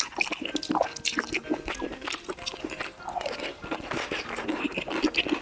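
Close-miked chewing and biting of food with crackly crunching, mixed with a metal spoon clinking and scraping against a glass bowl as the dish is stirred.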